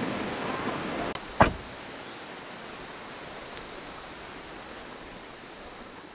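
Steady rush of a creek, louder in the first second, with one sharp click about a second and a half in; the sound begins to fade near the end.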